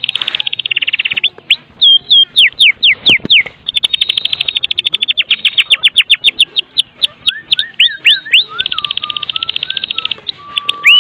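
White-rumped shama (murai batu) singing loudly: very fast rattling runs of repeated sharp notes, broken by quick down-slurred whistles, with some lower, slower whistled phrases in the second half.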